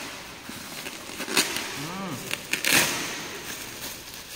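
Plastic shipping bag crinkling and rustling as it is torn and pulled off a cardboard shoe box, in a few sharper bursts.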